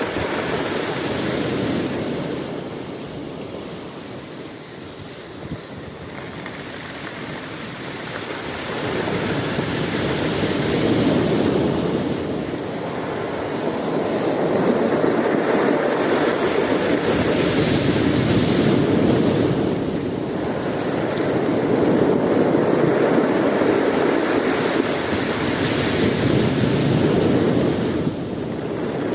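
Sea waves breaking and washing in: a continuous rushing surf that swells and eases every several seconds.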